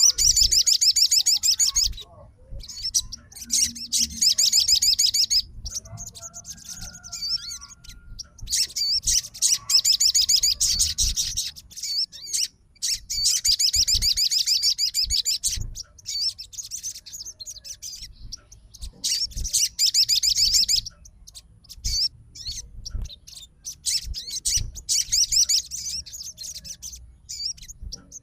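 Sogon songbird singing in long runs of rapid, high twittering chatter, each lasting one to three seconds, with short pauses between them.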